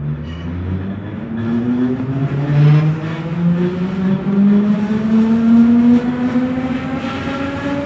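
Berlin S-Bahn class 485 electric train accelerating away from a station. Its electric drive whines in several tones at once that climb steadily in pitch, with wheel and track noise building as it picks up speed.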